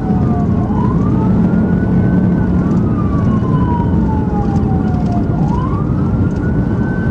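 Police siren on wail, sweeping up quickly and falling slowly, one cycle about every four and a half seconds, over steady road and engine noise at highway speed.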